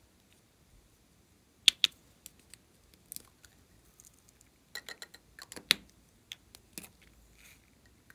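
Sharp clicks and taps of hard plastic toy lipstick cases being handled and pulled open: a loud pair about two seconds in, then a quick cluster of clicks around five to six seconds in.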